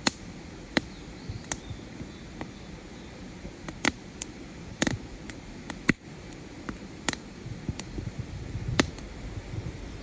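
Split-wood campfire crackling: about a dozen sharp pops come at irregular intervals over a steady low background.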